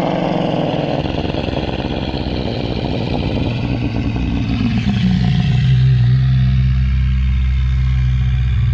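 Shantungosaurus dinosaur sound effect: one long, loud, rough bellow. About halfway through it slides down in pitch and then holds a deep, steady rumbling note.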